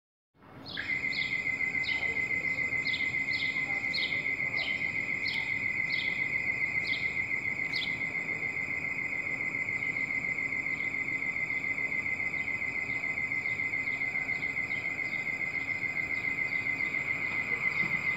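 A continuous high, fast-pulsing insect trill, typical of crickets, with a bird chirping again and again, about once or twice a second, over the first half.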